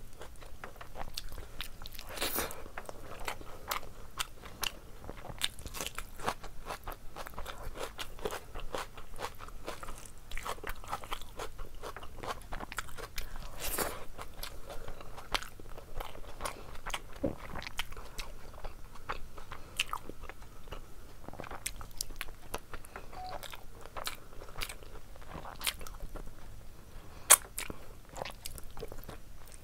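Close-miked eating: a person chewing and biting into meat curry and rice eaten by hand, with many small wet mouth clicks and smacks. One sharp click stands out near the end.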